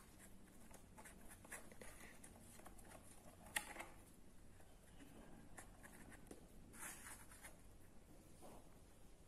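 Near silence with faint scratching and small clicks of cardboard and a stick being handled as the phone holder's lid is propped higher, with one sharper click about three and a half seconds in.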